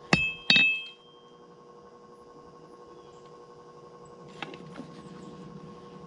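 Two hammer blows on steel about half a second apart, each ringing with a bright metallic tone, as the forged 5160 spring-steel kiridashi blade is straightened. Two faint clicks follow about four and a half seconds in.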